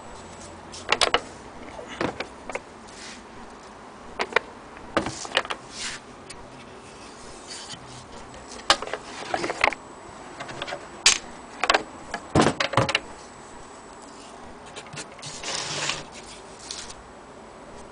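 Handling noise around an old wooden case: scattered sharp knocks and clicks, a couple of them in quick pairs, and a short scrape near the end.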